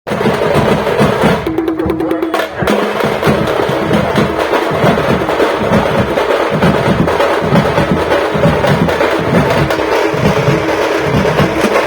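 Music with prominent percussion and a dense, steady beat. For about a second, starting about one and a half seconds in, the high end drops away before the full sound returns.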